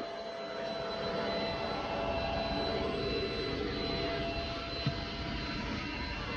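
Gaabor vacuum cleaner running steadily, its motor giving a continuous whine over a rushing hum, with one brief knock about five seconds in.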